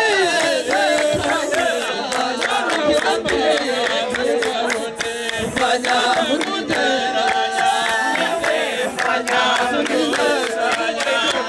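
A group of people singing and chanting together loudly, many voices overlapping, with a note held underneath and sharp sounds scattered through.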